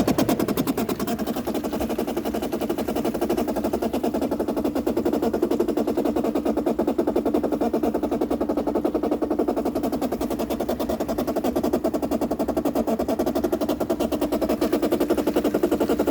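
2008 Bosch dishwasher's water inlet valve buzzing with a rapid, steady chatter as water flows in: the valve is visibly shaking, and the owner takes the noise for a failing inlet valve letting water in when it should not, the fault behind the machine overflowing.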